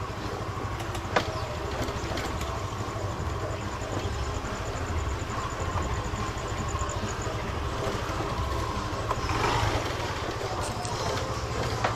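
Small motorcycle engine running steadily at low speed, heard from the rider's seat, with a sharp click about a second in and a brief swell of noise a little after nine seconds.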